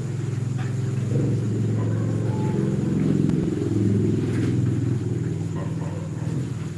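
A motor vehicle engine running, a low steady hum that grows louder toward the middle and fades near the end.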